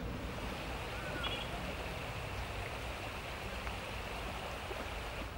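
Steady rushing of flowing water, an even outdoor wash of noise, with a brief faint chirp about a second in.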